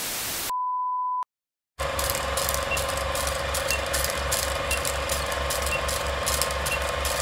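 TV static hiss, cut off about half a second in by a steady high test beep that ends in a click. After a short silence, an old film projector runs with a steady mechanical rattle and hum, and a faint short beep sounds once a second, five times, as a film countdown leader runs.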